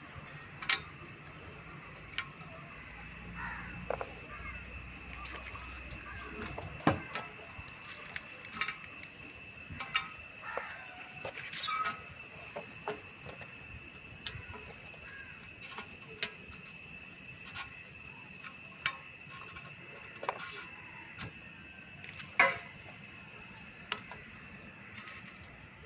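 Irregular light clicks and knocks, about a dozen spread out, from solar water heater parts being handled during installation, over a faint steady high hum.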